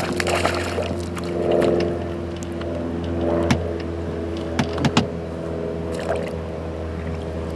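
A boat motor runs at a steady hum, with a few sharp knocks around the middle.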